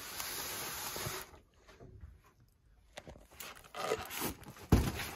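Handling noise: a scraping rustle lasting about a second, then a run of scattered clicks and knocks, with one sharper knock near the end.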